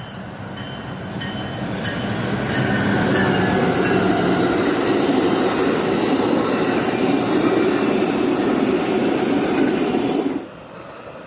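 An Amtrak passenger train passes close by. The diesel locomotive's engine hum builds as it approaches, then the passenger cars roll past with a loud, steady rush of wheels on rail. The sound cuts off abruptly about ten seconds in.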